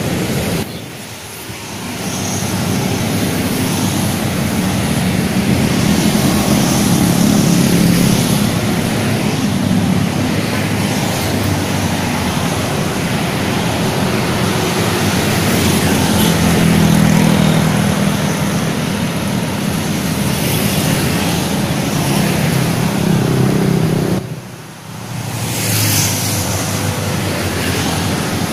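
Street traffic: motor scooters and cars driving past close by in a steady stream of engine and tyre noise, with two short lulls, about a second in and near the end.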